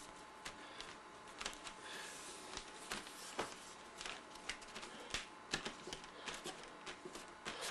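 Fingertips dabbing and patting wet paint onto a painting board, a string of irregular soft taps and sticky clicks, a few of them louder, over a faint steady hum.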